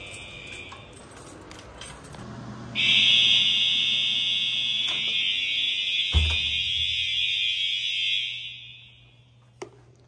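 Fire alarm horns of an older Cerberus Pyrotronics system sounding a steady, continuous horn tone. The horn cuts in suddenly about three seconds in, then fades away shortly before the end. A single thump comes about six seconds in.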